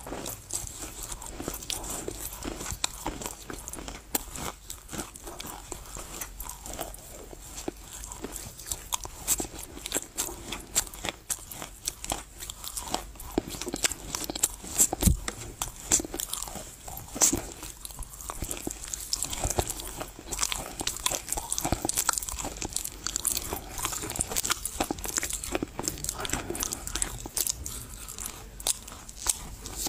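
Close-miked chewing and crunching of Chinese loess clay: a dense run of sharp crunches as the clay pieces break between the teeth.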